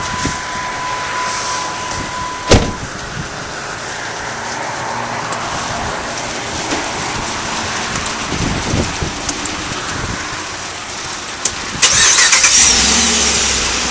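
2008 Dodge Ram's 5.7-litre Hemi V8 is started about twelve seconds in and runs loudly. Before that there is steady outdoor noise, a sharp thump about two and a half seconds in, and a steady high tone that stops just after the thump.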